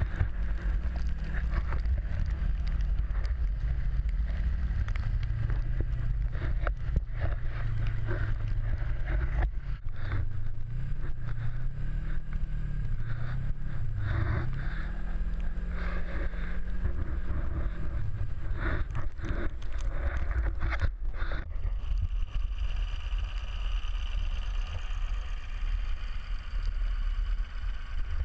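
Snowmobile engine running while riding over snow, its pitch wavering up and down with the throttle, with wind buffeting and knocks on the microphone. About three-quarters of the way through the engine note fades into a steadier, higher sound.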